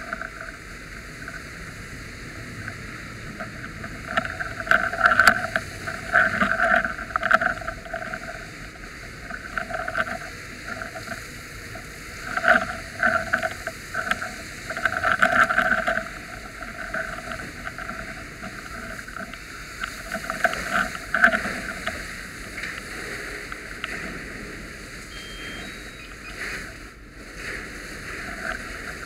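Fire hose nozzle spraying water onto smouldering debris, coming in irregular bursts of a second or two with quieter stretches of steady rushing between.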